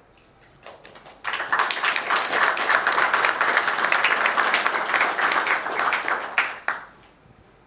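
Audience applauding: a few scattered claps, then full applause from about a second in that lasts about five seconds and dies away near the end.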